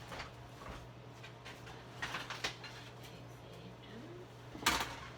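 Scattered knocks and clatters of kitchen things being handled and set down on a counter, with one louder knock near the end, over a low steady hum.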